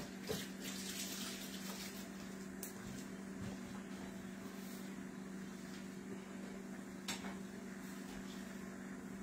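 A steady low hum, with a faint hiss in the first couple of seconds and a few light clicks of kitchenware, three times in all.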